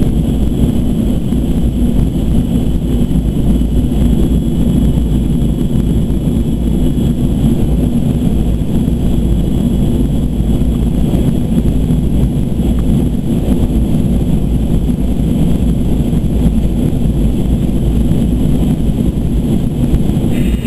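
Steady in-flight cabin noise of a Boeing 737-200 Advanced: a loud, even low rumble of airflow and its Pratt & Whitney JT8D turbofan engines, with thin steady high-pitched whines above it.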